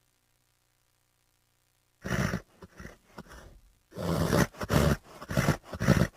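Horse making a run of short, rough, breathy sounds. It starts with one burst about two seconds in, then from about four seconds in they come roughly twice a second.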